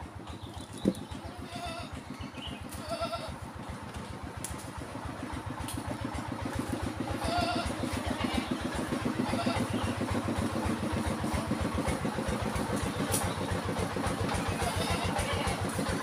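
Stihl two-stroke chainsaw idling steadily, getting louder about halfway through, with one sharp knock about a second in.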